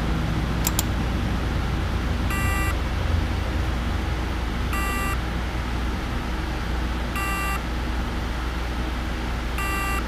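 Failed 1 TB Seagate 7200.12 hard drive, heard through a microphone resting on it, giving a short buzzing chirp four times, about every two and a half seconds, while the platters do not spin up. This is the sound of a stuck spindle, which usually points to a spindle bearing problem on these drives. A steady hum and hiss from the laminar flow hood runs underneath.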